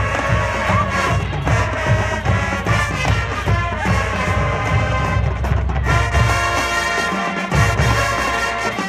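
Marching band playing: brass carrying the tune over a steady drum beat. The low drums drop out for a moment about seven seconds in.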